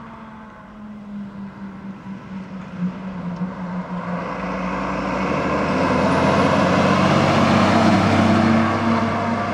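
Fire engine approaching on a road and passing close by. Its engine and tyre noise build steadily and are loudest as it goes past about eight seconds in.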